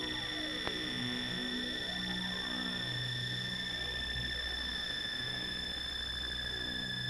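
Apple II–synthesised drone: steady high tones over a low hum whose harmonics shift in and out, with faint gliding sweeps falling and then rising through the middle. A single click sounds about two-thirds of a second in.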